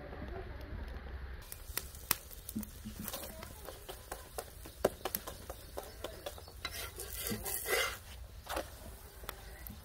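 Metal spatula clicking and scraping against an iron tawa as an oiled chapati cooks, with a light sizzle. Sharp ticks come at irregular moments, and a longer scrape comes around three-quarters of the way through.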